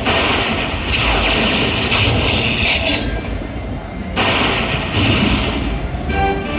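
Lightning Cash slot machine sound effects: a loud, noisy rumble with pulses of hiss, then a chiming jingle of short tones starting near the end.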